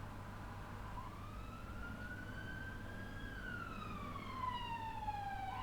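Emergency vehicle siren wailing: a slow rise in pitch starting about a second in, then a long fall, sweeping up again at the very end, over a steady low hum.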